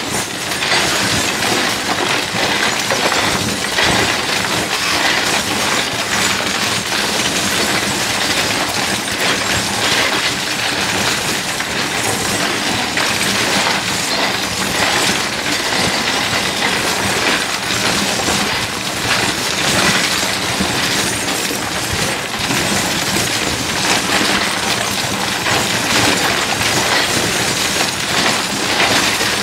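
Harsh noise / musique concrète: a dense, unbroken wall of noise thick with small clicks and rattles, spread from low to very high pitches, with no beat or melody.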